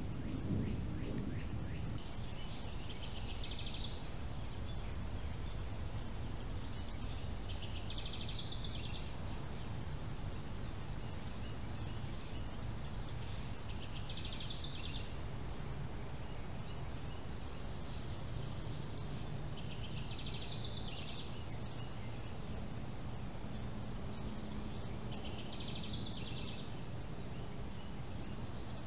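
Insects calling: a steady high-pitched trill, with a short buzzy, pulsed phrase repeated five times, about every five to six seconds, over a low steady background noise.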